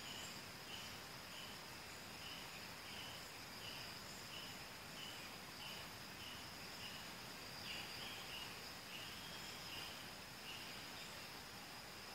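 Faint chorus of chirping insects: a steady high trill, with a lower chirp repeating about twice a second over a soft hiss.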